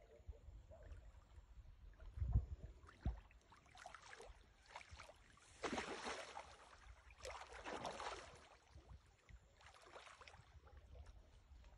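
Water splashing and sloshing in several short bursts through the middle, with two dull low thumps a couple of seconds in.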